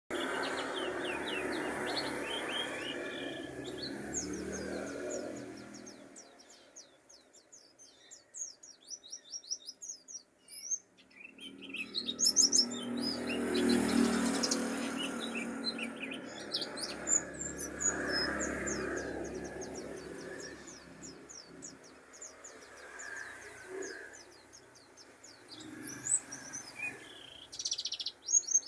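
Pleci dakun white-eye singing: a fast, high twittering of short chirps running on in long phrases. There is a broad background noise under it, loudest at the start and again in the middle.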